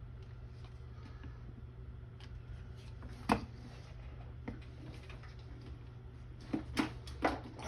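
Light clicks and taps from working a hot glue gun against a rubber hose grommet: one sharp click about three seconds in, then a quick run of four or five clicks near the end, over a steady low hum.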